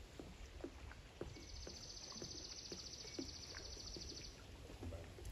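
A small creature's high, fast, even trill lasting about three seconds, starting about a second in, over faint scattered ticks and a low rumble.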